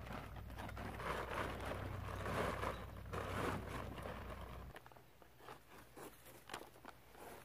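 Rustling and crunching handling noise over a low rumble, cutting off abruptly about five seconds in; a few light footsteps or clicks follow.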